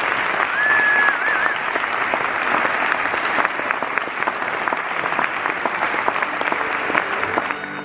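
Audience applauding in a church concert hall as the orchestra takes the stage. About half a second in, a short whistle is held briefly and ends in a few quick wavers.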